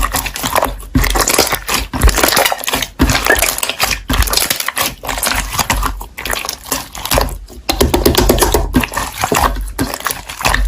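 Slime being squished and pressed, making wet, irregular crackling and popping clicks.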